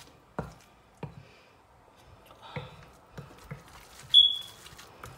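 A few soft knocks and clicks from mixing the haddock patty mixture in a bowl, then a single short, high electronic beep about four seconds in, the loudest sound.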